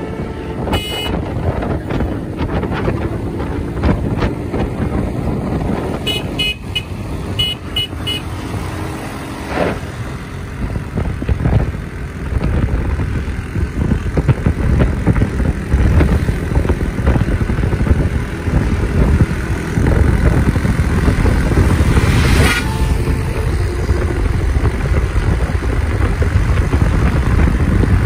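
Hino bus diesel engine running with road and traffic noise, louder in the last third as the bus comes close. A series of short horn toots sounds about a quarter of the way through.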